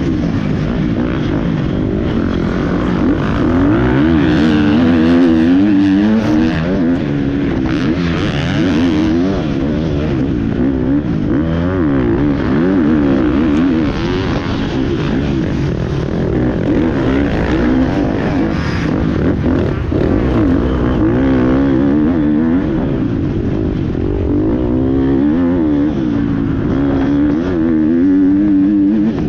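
GasGas MC 250 motocross bike engine revving hard, its pitch rising and falling again and again as the bike is ridden around a dirt track.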